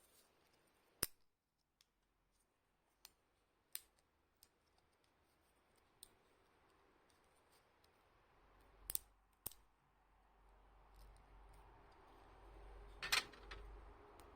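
Scattered sharp clicks and taps a second or more apart against near silence, the loudest a quick double click near the end; a faint low hum builds from about eight seconds in.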